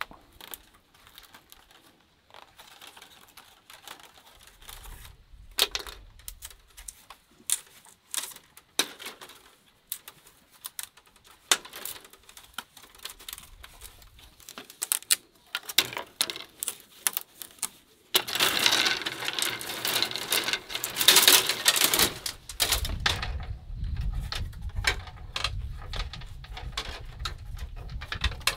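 Thin bamboo strips clicking and rustling as they are woven through a bamboo basket, an irregular stream of sharp ticks. About two-thirds in there is a louder stretch of dense rustling, and a low rumble sits under the last part.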